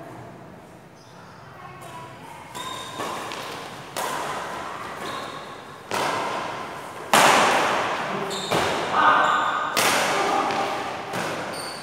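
Badminton rackets striking the shuttlecock in a doubles rally: a sharp crack every second or so, each trailing off in the hall's echo. The hardest hits come in the second half.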